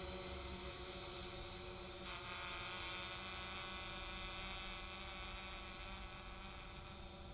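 DJI Phantom 4 quadcopter's propellers and motors giving a steady buzz as it climbs away, slowly growing fainter.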